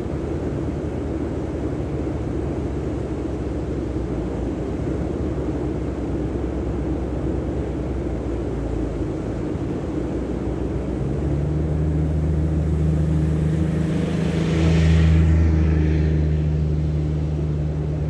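Steady low outdoor rumble of wind and surf, with a passing engine's drone coming in about two-thirds of the way through, swelling to its loudest a few seconds later and then fading.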